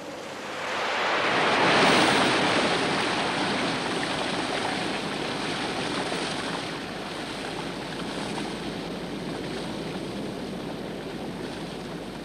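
Steam rushing out of a volcanic vent: a hiss that builds over the first two seconds, then carries on steadily.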